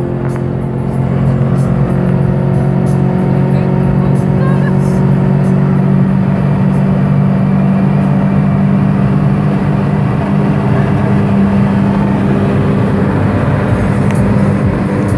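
Opel C20XE 2.0-litre 16-valve four-cylinder engine droning at steady high revs under full-speed cruising at over 200 km/h, heard inside the car's cabin along with loud wind and road noise.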